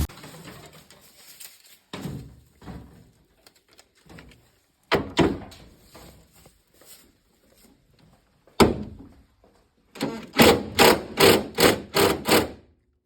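A few separate knocks, then a quick run of about eight sharp strikes near the end, as from tools working on a stuck bolt.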